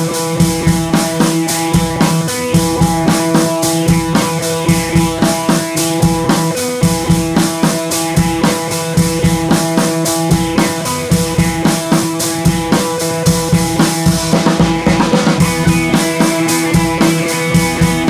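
Background music with a steady drum-kit beat over sustained held tones, with a brief rushing swell about three-quarters of the way through.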